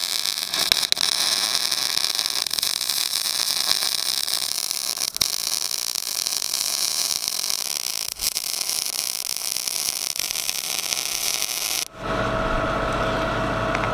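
MIG welding arc sizzling steadily as a single-pass fillet bead is laid along a shipping container's steel corner casting onto a steel plate, on metal with some paint and dirt left in the joint. The arc cuts off about 12 seconds in, leaving a steady lower hum.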